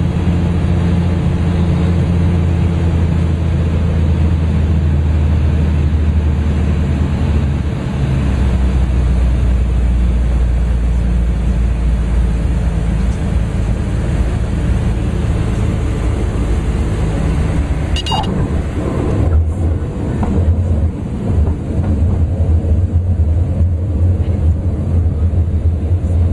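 Cessna 400 Corvallis's Continental TSIO-550 turbocharged six-cylinder engine and propeller heard from inside the cabin, a steady loud drone. Its pitch steps down about eight seconds in, and it grows less even from about twenty seconds in. A short high beep sounds just before that.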